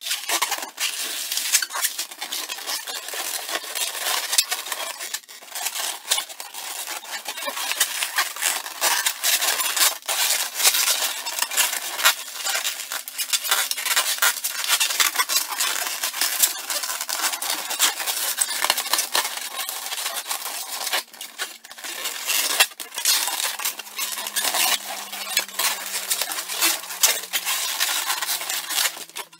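Inflated 260Q latex modelling balloons being twisted and squeezed by hand: a continuous dense rubbing and squeaking of the rubber, full of small crackles and ticks.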